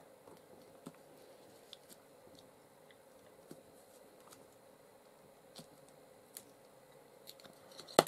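Faint scattered clicks and taps as a small ink pad is handled and dabbed onto paper, with a sharper click near the end, over a faint steady hum.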